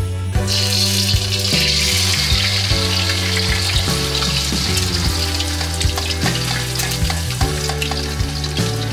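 Raw eggs sizzling as they hit a hot wok, with a slotted turner clicking and scraping against the pan while they are stirred. The sizzle starts about half a second in, under background music.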